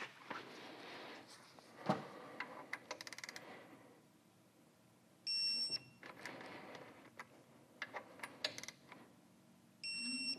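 Digital torque wrench ratcheting a bolt down in short runs of quick clicks, then giving a steady electronic beep of about half a second as it reaches the set torque. This happens twice: one beep about five seconds in and one near the end.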